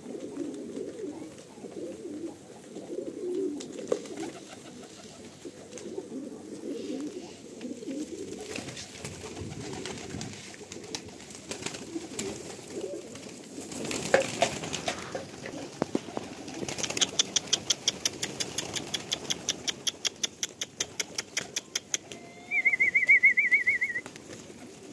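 Domestic pigeons cooing, low and wavering. Later comes a fast run of sharp clicks lasting about five seconds, then a short trilled whistle near the end.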